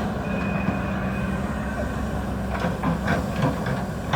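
Tata Hitachi EX200 excavator's diesel engine running steadily, with a brief high whine near the start and a run of sharp metallic knocks and clanks from about two and a half seconds in.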